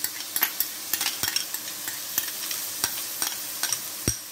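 Shredded chicken frying in a hot metal pan: a steady sizzle with scattered sharp ticks. A single dull thump comes about four seconds in.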